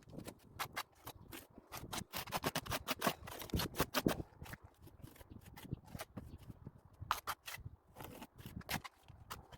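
Quick, irregular scraping and rubbing strokes of a hand tool worked against a wall surface.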